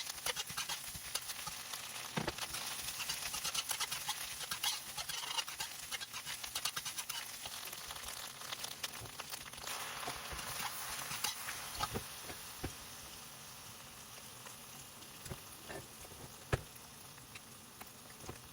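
Noodles sizzling in a stir-fry pan as they are tossed, with scattered clicks of the utensil against the pan. The sizzle grows quieter in the second half.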